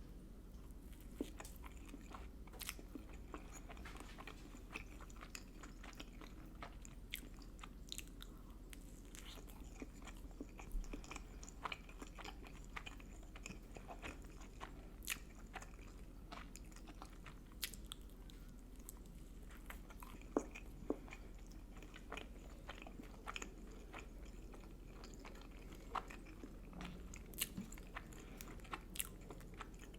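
Someone biting and chewing Pizza Hut food, with irregular sharp crunches and clicks over a quiet background.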